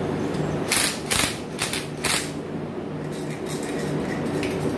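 Cordless power driver run in four short bursts on the bolts of a refrigeration suction filter drier shell cover, over a steady low hum.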